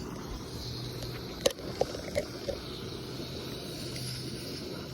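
Steady low background rumble with a faint hum, and one sharp click about one and a half seconds in followed by a few faint ticks.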